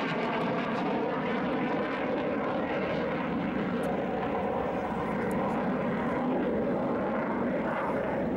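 Hawker Hunter jet flying past, its jet engine giving a steady rushing noise with a faint whine that holds level.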